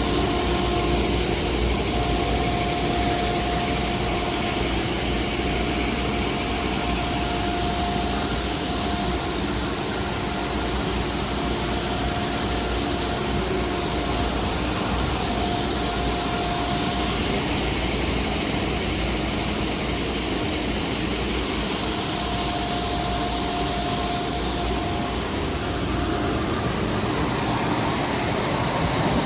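Heavy farm engine running steadily, with a steady hiss and a faint whine that comes and goes.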